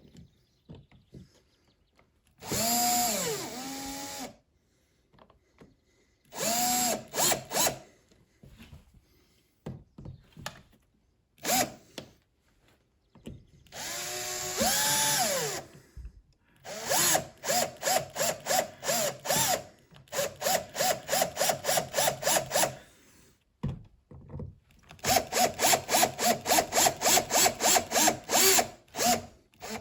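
Power drill/driver driving screws in short bursts, its motor whine rising as it spins up and falling as it stops. Later it runs in rapid even pulses of about four or five a second.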